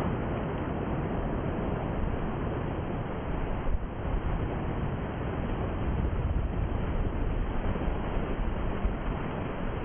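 Wind buffeting the camera microphone: a steady rushing noise with irregular low rumbling gusts, dipping briefly a little under four seconds in.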